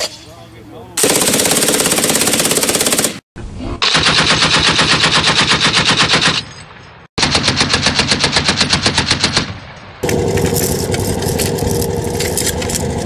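British Browning Mark II .303 aircraft machine gun firing full-auto bursts. There is a fast burst about a second in, then two bursts played in slow motion so the separate shots come at an even, slower beat, then fast fire again from about ten seconds in.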